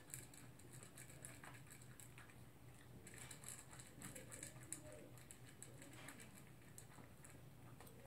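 Toy poodle eating dry kibble from a slow-feeder bowl: faint, irregular crunching and small clicks of kibble against the bowl, busiest around the middle.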